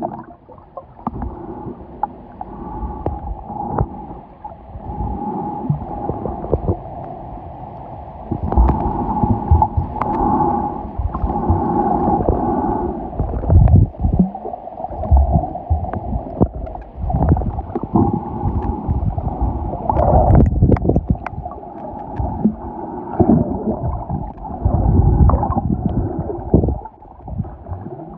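Muffled underwater noise picked up by a submerged camera: water gurgling and rushing past, with irregular low thumps and knocks.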